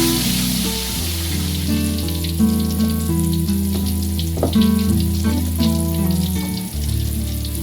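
Tofu frying in hot oil, a steady sizzle with fine crackles, under instrumental background music of held notes.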